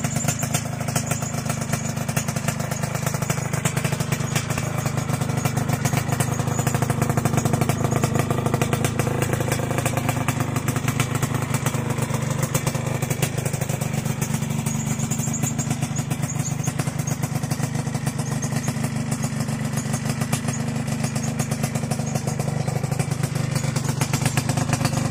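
Suzuki Panther TXR 150's single-cylinder two-stroke engine idling steadily, with a rapid even firing beat.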